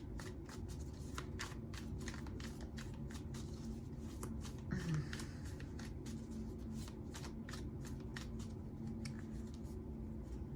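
Tarot cards being shuffled by hand: a quick, uneven run of short papery clicks that thins out near the end, over a faint steady low hum.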